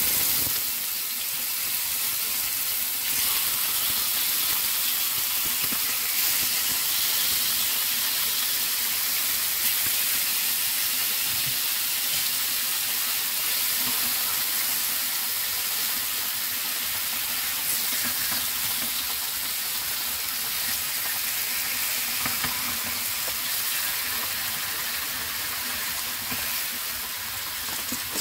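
Marinated pork tapa slices sizzling in hot oil in a frying pan: a steady, high hiss of frying.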